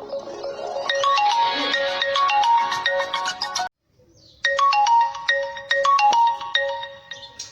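Vivo V20 original ringtone: a bright melody of short, quickly repeating notes. It cuts off a little before halfway, and after a brief pause the same phrase starts over, fading toward the end.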